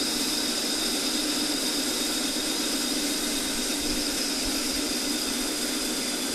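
Small capstan lathe running at a steady pitch, driven by a 2 hp swimming-pool pump motor through a V-belt and gearbox, while an inverted parting tool cuts off a brass flare nut.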